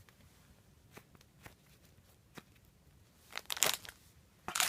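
Crinkling and rustling as squishy toys are handled: a few faint ticks, a brief rustle a bit over three seconds in, then steady crinkling near the end.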